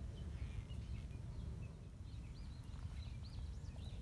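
A small bird singing a run of quick, arching high notes, starting about two and a half seconds in, over a steady low rumble on the microphone.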